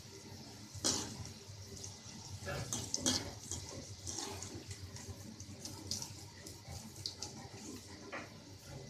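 Battered snake gourd pieces deep-frying in hot oil, sizzling with irregular crackles and pops.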